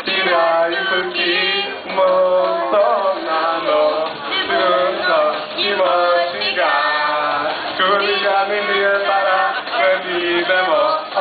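Men singing a song in rough Japanese over a karaoke backing track, with sung notes held and bending in pitch throughout. The sound is a low-quality, dull-topped audience recording.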